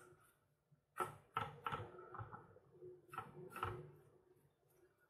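Faint handling noise as a flat brush is worked over a plastic scale model and the model is turned on its turntable: two short clusters of rubbing and scraping, about a second in and again just after three seconds.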